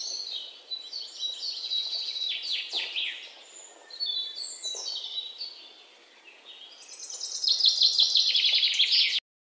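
Songbird singing: varied high, quick warbling phrases, a short lull about six seconds in, then a loud run of rapidly repeated notes that cuts off abruptly near the end.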